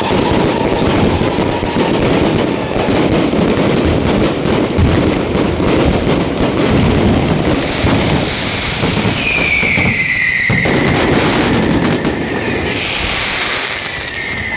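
Aerial fireworks going off in a dense, continuous crackle of rapid bangs. A falling whistle-like tone comes through about nine seconds in.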